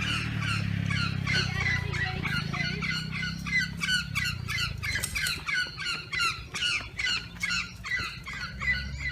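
Birds squawking over and over, several short calls a second, overlapping like a flock, over a low steady hum that fades about halfway through.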